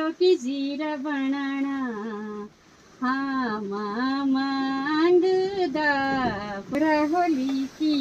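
A woman singing unaccompanied in long held phrases, with a short break about two and a half seconds in.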